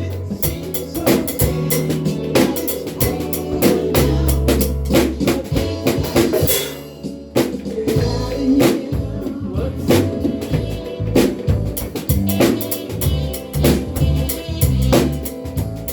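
Drum kit played in a steady groove along with a recorded song with bass and vocals, rimshots and bass drum hits on top of the track. The playing thins out briefly about seven seconds in, then the groove picks up again.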